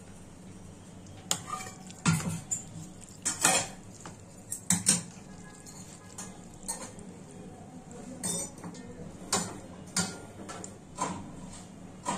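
Metal spoon clinking and scraping against a dish as momo filling is scooped onto wrappers: about a dozen sharp, irregular taps, some in quick pairs.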